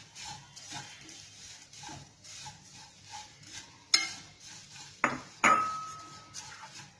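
A spatula stirring flattened rice and oats in a stainless-steel pan, with soft scraping strokes again and again. Three sharp knocks against the pan come about four and five seconds in, and the last leaves a brief metallic ring.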